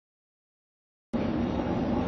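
Silence, then about a second in the sound cuts in abruptly: a steady low rumble of a train approaching out of sight.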